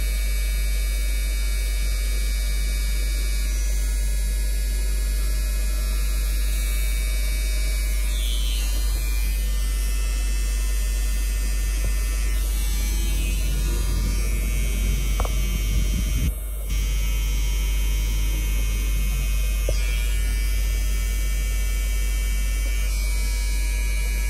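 Cordless barber's T-blade trimmer running with a steady electric buzz as it trims the hairline around the ear and sideburn, with one brief dip in the sound about two-thirds of the way through.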